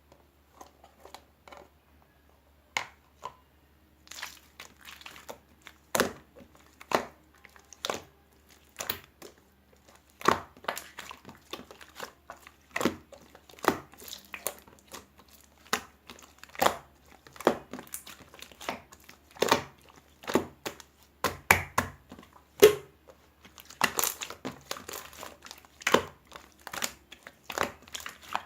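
Crinkling and crumpling: a long run of sharp, irregular crackles with short pauses between them.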